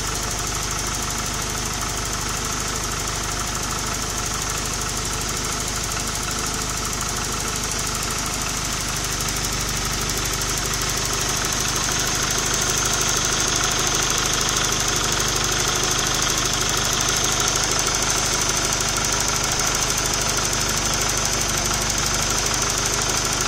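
Vehicle engine running steadily, getting a little louder about halfway through.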